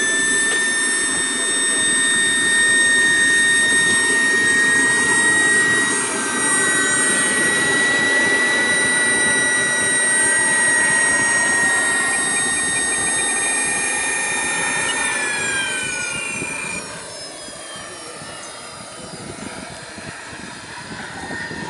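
Model jet turbine running with a steady high-pitched whine, then spooling down about fifteen seconds in, its pitch falling and fading away. A fainter second whine sweeps up and down in pitch midway.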